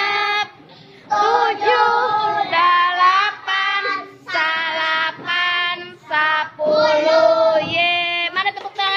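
A group of young schoolchildren singing a song together in held, steady notes, with a short break about half a second in.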